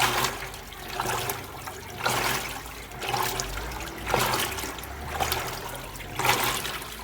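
Electrolux LT12F top-load washing machine with water sloshing in the tub, in rushing surges about once a second over a low hum.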